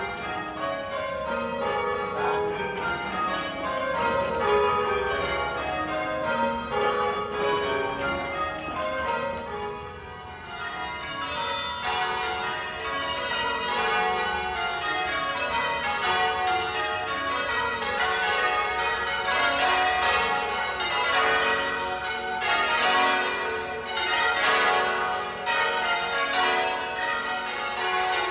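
Church tower bells rung full circle by a band of ringers, ringing rounds: the bells strike one after another from highest to lowest in repeated descending runs.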